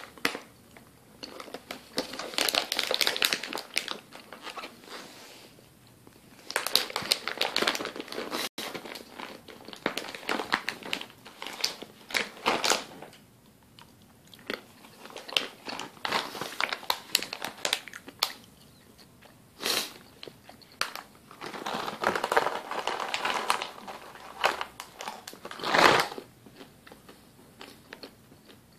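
Basset hound chewing and crunching a treat: irregular bouts of crisp crunches with short quiet pauses between them.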